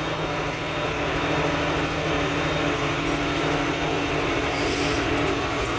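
Old International tractor's engine running steadily while driving, a constant low drone heard from inside the closed cab.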